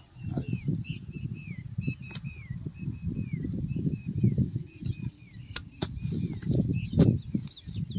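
A hoe chops into soil, with a few sharp knocks from about halfway on, over an uneven low rumbling noise. A small bird keeps repeating a short descending chirp.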